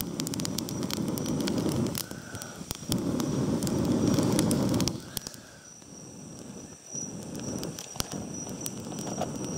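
A small twig kindling fire crackling and popping while someone blows long breaths onto it to get it going: two strong blows of about two seconds each, then a weaker one near the end.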